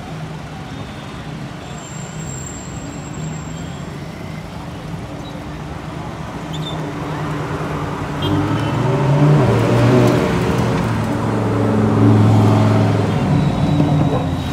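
Lamborghini supercars driving past one after another, their engines running at low revs. The engine note gets much louder about eight seconds in as the cars come close, and swells twice.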